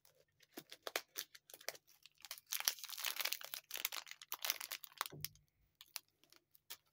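Thin clear plastic wrapping crinkling as it is handled and pulled off a wristwatch. Scattered crackles thicken into a dense run in the middle, then thin out to a few near the end.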